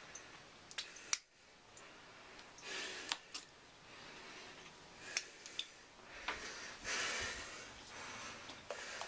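Handling noise on a phone's microphone: a scatter of sharp clicks and taps, with two short breathy, hissy stretches about three and seven seconds in.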